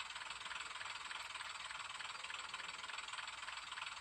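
Sound decoder of an N gauge Class 101 DMU model playing a steady diesel engine idle through the model's small speaker. It is thin, with almost no bass, and has a faint regular chug of a few beats a second.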